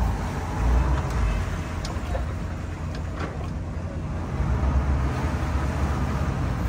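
Boat engines running at idle, a steady low rumble that grows somewhat louder a little past four seconds in.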